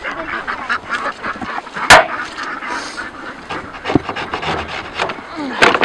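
Domestic ducks quacking repeatedly, with a sharp, loud knock about two seconds in and another near the end.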